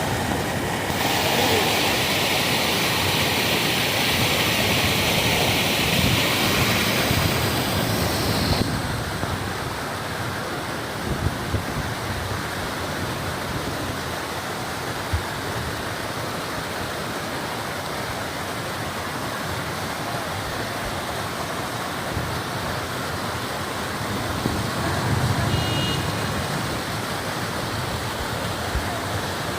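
Steady rush of rain and running rainwater. A brighter hiss for the first eight seconds or so settles into a lower, even wash.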